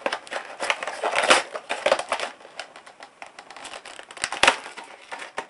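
Clear rigid plastic clamshell packaging handled and opened by hand: irregular crinkling, crackling and clicking of the plastic, loudest about four seconds in.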